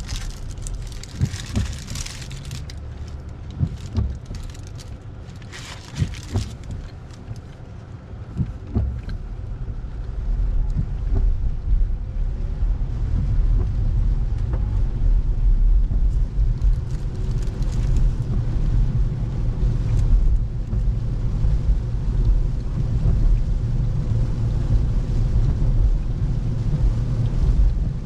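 Car heard from inside the cabin: a steady low rumble of engine and road noise that grows louder about ten seconds in and then holds. A few sharp clicks and knocks come in the quieter first seconds.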